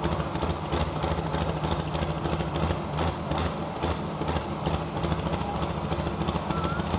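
Diesel engine of a hot farm class pulling tractor idling steadily while hooked to the sled, waiting for the green flag; the engine has the sound of a Cummins diesel.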